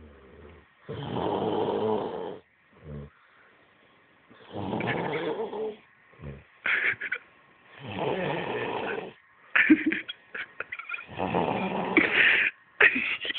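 Heavy snoring of a man passed out drunk: a long snore about every three seconds, with short, sharp breaths between them in the second half.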